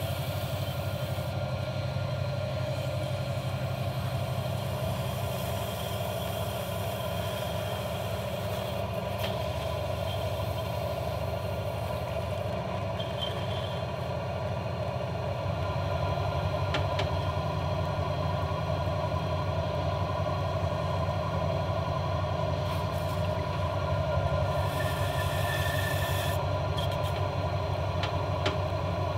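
Electric potter's wheel running steadily, a continuous motor hum while wet clay is thrown into a bowl; the low hum shifts twice.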